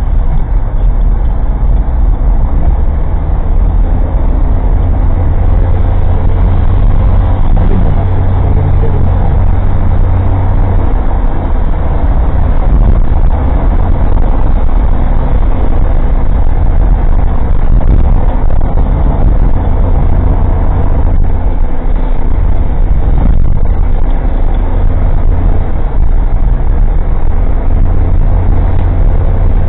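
Old Suzuki Jimny kei car's engine running steadily with road noise while driving, recorded from inside the cabin by a cheap dashcam that makes the engine sound loud and boomy.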